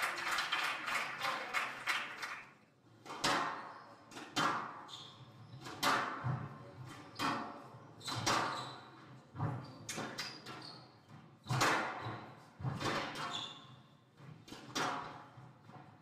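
Squash ball struck by rackets and cracking off the court walls, a sharp echoing hit about every second during a rally, with a few short high squeaks of shoes on the wooden court floor.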